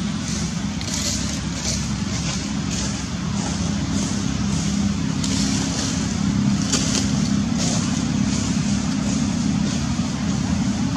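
A steady low engine-like hum, as of motor traffic running, with faint short hissing sounds coming and going above it.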